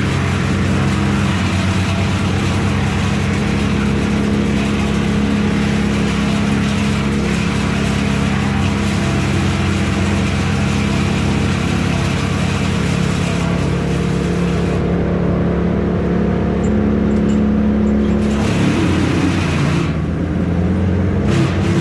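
Heavy engine running at a steady pitch, with a hissing noise on top that drops away for a few seconds about two-thirds of the way through and then returns.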